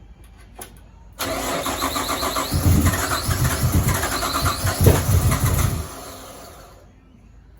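Nissan RB30DET turbocharged straight-six starting with a sudden burst about a second in. It runs for several seconds after fresh turbo oil-feed and intake work, then dies away near the end.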